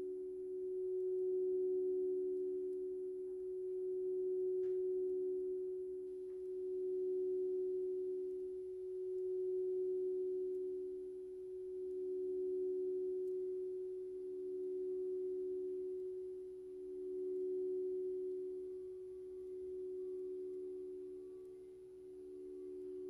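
Two steady, pure humming tones held together at close pitches, swelling and easing slowly about every two and a half seconds: a sustained meditation frequency tone.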